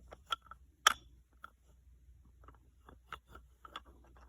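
Toy wooden engine being handled, giving a string of small, sharp clicks and taps, the loudest two about a third of a second and about a second in.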